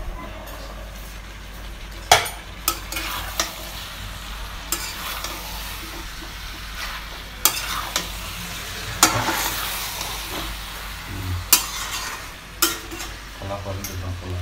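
Goat-meat curry frying in a steel kadai, stirred with a metal spatula: a steady sizzle with sharp scrapes and clanks of the spatula against the pan, about eight of them, the loudest about two seconds in.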